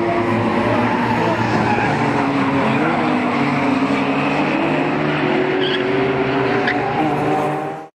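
BMW E36 drift cars running hard on a track, engine pitch rising and falling as the driver works the throttle, with tyres squealing as the car slides sideways. The sound cuts off abruptly near the end.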